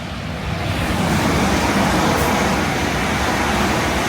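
Loud rushing train noise, wheels and running gear on the rails, swelling over the first second and holding, then starting to ease off near the end.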